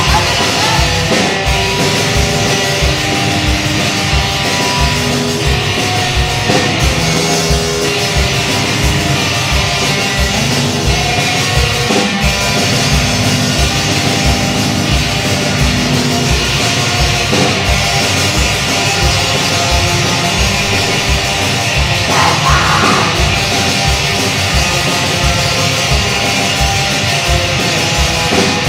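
A fastcore punk band playing live: loud distorted guitar over a steady, driving kick-drum beat, without letup.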